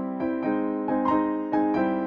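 Background music: a melody of ringing keyboard-like notes, several struck each second.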